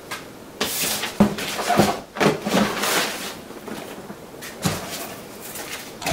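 Crumpled packing paper rustling and cardboard scraping as a boxed kit is pulled out of a shipping carton, with a knock about a second in and another short burst of handling near the end.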